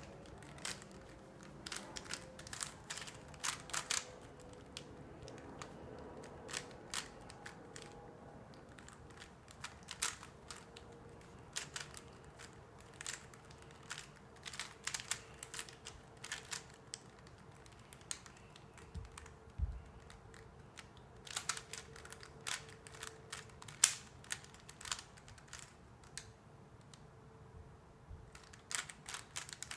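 3x3 plastic speed cube, loose in its joints, clicking as its layers are turned fast during a solve: irregular runs of sharp clicks broken by brief pauses.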